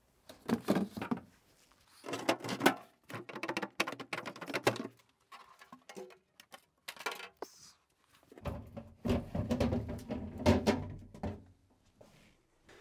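Fridge glass shelves and plastic drawers being handled and lifted out, clinking, rattling and knocking against the fridge's plastic liner in three bouts of handling.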